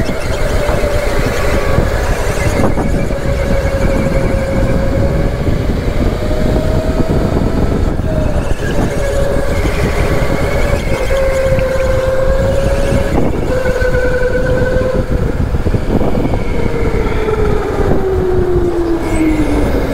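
Racing go-kart's motor heard from on board, its pitch wavering up and down with speed and falling steadily over the last few seconds as the kart slows, over a heavy rumble from the kart on the track.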